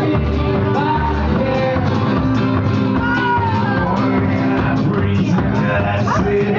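Live band playing an upbeat rock-and-roll song, with guitar over a steady drum beat.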